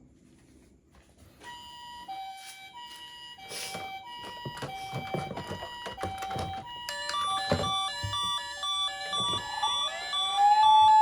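Electronic sirens of toy ambulances sounding the hi-lo two-tone ambulance call, one at first and several overlapping from about halfway, with a rising wail near the end, amid knocks from the toys being handled.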